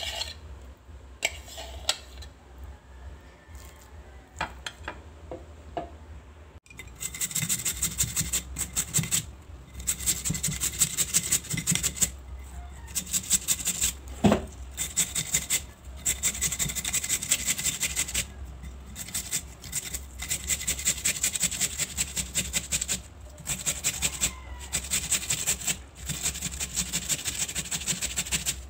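A peeled potato rubbed quickly back and forth on a flat metal hand grater, a fast run of rasping strokes that starts about a quarter of the way in and comes in stretches with short pauses. A single sharp knock about halfway.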